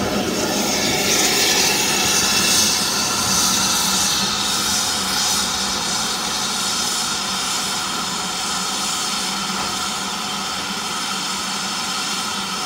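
Steam locomotive venting steam with a loud, steady hiss, strongest in the first few seconds and then easing a little.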